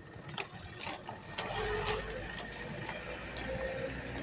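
Marching squad stamping in step, feet landing together about twice a second, with faint voices behind.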